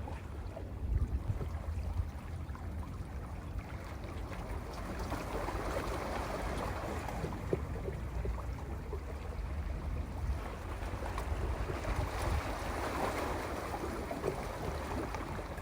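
Sea waves washing against a rocky shore, swelling and easing in two surges, with a low rumble of wind on the microphone.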